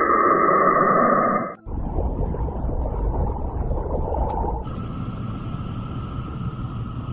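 Radio emissions from space converted into sound: an eerie rushing noise with a steady high tone, which cuts off suddenly about one and a half seconds in to a deeper rumbling noise. That changes again about five seconds in to a hiss with another steady tone.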